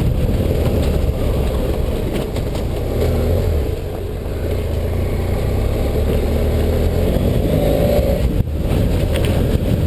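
BMW F800GS 798 cc parallel-twin engine running as the bike rides a gravel track, with rough low rumble from the ride. The sound dips briefly about eight and a half seconds in, as when the throttle is closed for a moment.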